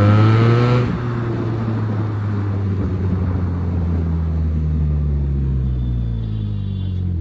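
SRK 400 motorcycle engine and exhaust under way: the revs climb and then drop sharply just under a second in, as on a gear change or closed throttle. It then pulls steadily, the pitch rising slowly and easing off again near the end.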